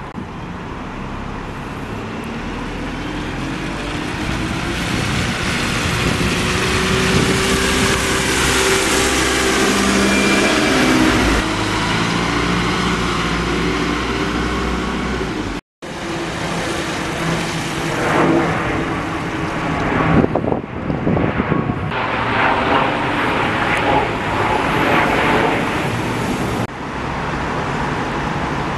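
Diesel buses and road traffic on a wet street: an engine grows louder and passes, then buses run at a bus stand.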